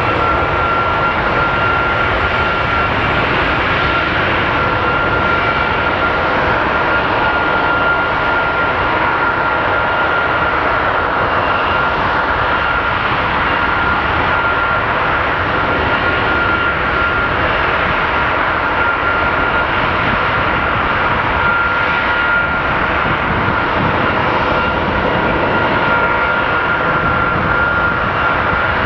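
Boeing 757-200 freighter's turbofan engine running steadily at high power on a ground engine test: a constant roar with a steady high whine, which finishes rising to its pitch right at the start.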